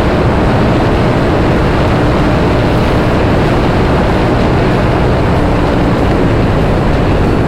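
Royal Enfield 650 parallel-twin through Red Rooster aftermarket exhausts running hard at speed, heard through heavy wind blast on the helmet mic. The loud wind noise sits over the engine note and stays steady throughout.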